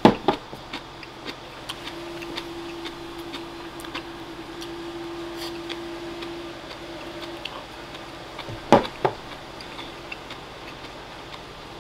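Chopsticks and ceramic bowls clicking while a man eats rice, with small irregular ticks throughout. A sharp clack at the start, and two more about nine seconds in as the rice bowl is set down on the wooden table. A faint steady hum runs for a few seconds in the middle.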